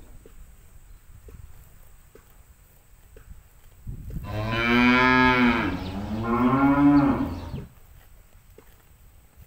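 A cow mooing once, starting about four seconds in: one long call of nearly four seconds whose pitch drops midway and then rises again.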